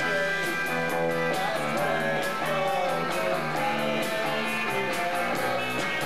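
Live rock band playing: electric guitars holding chords over drums, with cymbal strokes keeping a steady beat.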